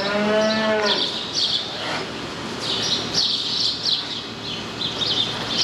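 A calf moos once, a single drawn-out call of just under a second at the start, over repeated high chirping of small birds throughout.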